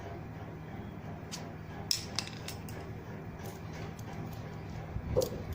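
Light metal clicks and taps as a small screwdriver works a nut off a sewing machine's shuttle assembly, over a faint steady hum.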